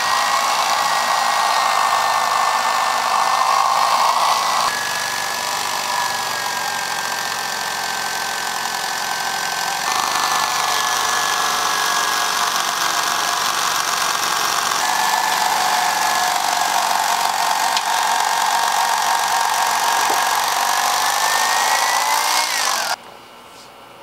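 Electric reciprocating knife running as its blades saw through a thick slab of upholstery foam: a steady motor whine with a thin high tone over the cutting noise, which grows and fades a few times as the cut goes on. Near the end the pitch rises briefly, then the knife switches off.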